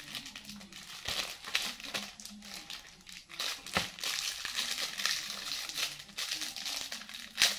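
Plastic packaging crinkling and crackling as small wrapped items are handled and unwrapped, with scattered sharp snaps and a louder crackle near the end.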